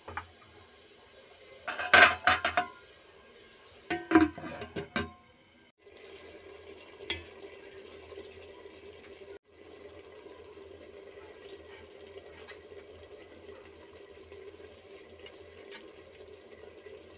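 A utensil clattering and scraping against an aluminium cooking pot in two short bursts, about two and four seconds in. A steady low hiss with a faint hum follows.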